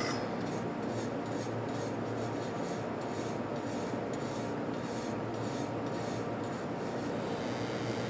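Hand wire brush scrubbing back and forth over a copper-nickel pipe weld, cleaning it. The strokes come about three a second and stop near the end, over steady fabrication-shop noise.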